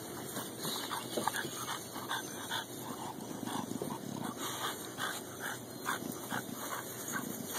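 Dogo Argentino puppies whimpering and yipping, a run of short high-pitched calls at about three a second.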